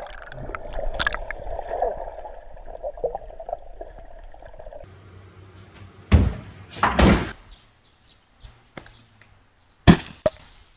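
Muffled underwater rushing and gurgling as a swimmer dives, then two loud crashes about a second apart, and a single sharp thud near the end.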